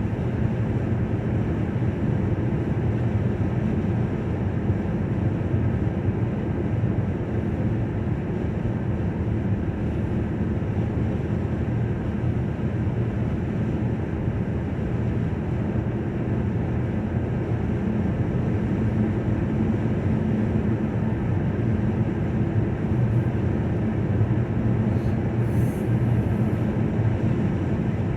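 Steady road noise of a car being driven, tyres and engine heard from inside the cabin, with an even low rumble that does not change.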